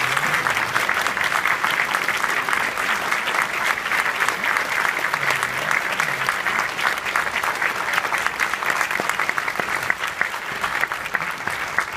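A large audience applauding, many hands clapping in a dense, steady patter that eases off slightly near the end.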